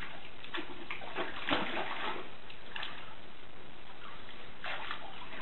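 Water sloshing and splashing in a plastic kiddie pool as dogs paw at it and wade through it, a steady wash broken by irregular splashes.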